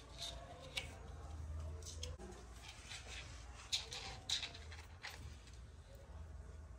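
Kittens scampering on a hard tiled floor: a few scattered light clicks and scuffs from their paws, over a low steady hum.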